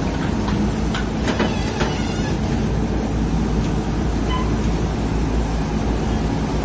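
Amphibious excavator working: a steady low engine rumble, with a run of clanks and short squeaks in the first couple of seconds.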